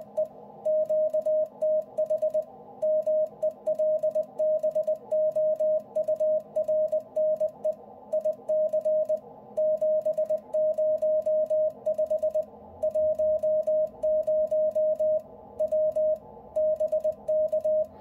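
Icom IC-705's CW sidetone sending a stored keyer memory in Morse code: one steady tone of about 600 Hz keyed on and off in dots and dashes. The message spells out the operator's name, QTH Melbourne, the radio and its power (705, 10 W) and ends with BK.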